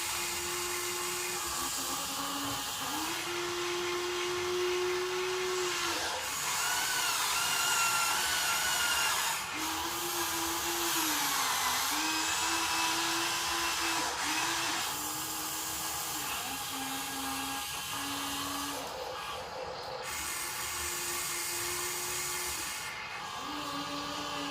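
Small electric motors of a radio-controlled model excavator or tractor whining in spells of a few seconds, the pitch stepping between a higher and a lower note as different motions start and stop. A second, higher whine rises and falls in the middle.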